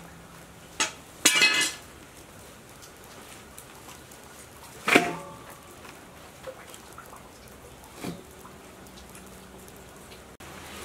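Stainless steel basin clanking on concrete while being handled: a pair of sharp ringing knocks about a second in, a louder one about five seconds in, and a lighter knock near the end.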